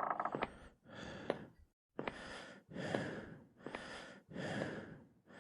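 A person breathing heavily and fast: a run of loud, rasping breaths in and out, about one a second.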